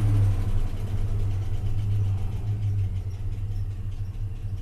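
A truck's V8 engine easing down from a brief rev and settling into a steady idle. The engine has an intermittent misfire, which the owner places on the passenger-side bank.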